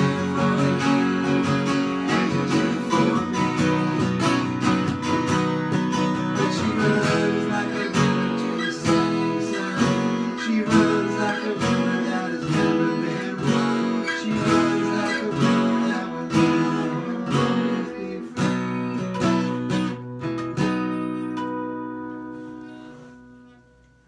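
Acoustic guitar strummed in a steady rhythm of chords. About twenty seconds in, the strumming stops on a last chord that rings out and fades away.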